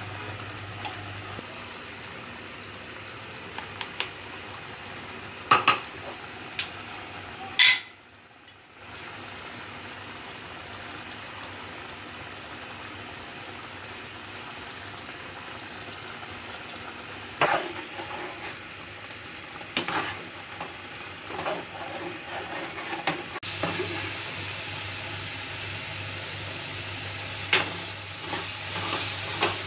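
Chicken and potato curry sizzling and simmering in a wide pan, with a spoon knocking and scraping against the pan now and then as the masala is stirred in; the knocks come thicker towards the end as the gravy cooks down.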